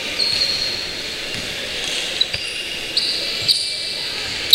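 Basketball game in play: sneakers squeak sharply on the court floor several times over faint ball-bounce thuds and general hall noise.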